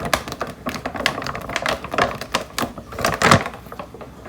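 Kitchen utensils and containers being handled, making irregular clicks and knocks with a louder knock about three seconds in.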